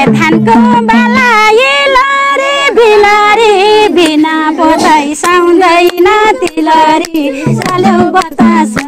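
Women singing a Nepali folk song in a high voice with wavering held notes, over a steady percussion beat.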